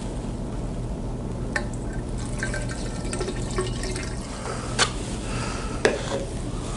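Water poured from a plastic jug into the open top of a capped vertical pipe, filling it for a leak test of the repaired section. A few sharp knocks sound, at about one and a half, five and six seconds in.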